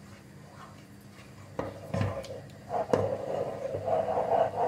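A wooden spoon stirring thick, cooking milk custard in a pot, with three knocks of the spoon against the pot and a soft scraping swish near the end. It is stirred quickly to keep the thickening cream from sticking to the bottom.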